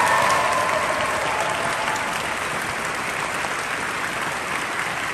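Audience applauding: steady clapping from a full hall, slightly louder in the first second and then even.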